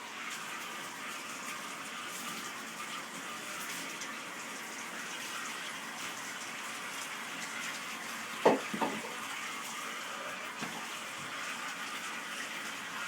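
Bathtub tap left running, water pouring steadily into the tub. Two sharp knocks come close together about eight and a half seconds in.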